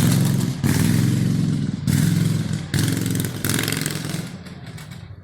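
Craftsman LT 1000 riding lawn mower's engine running loudly, with throttle surges about once a second, then dying down near the end.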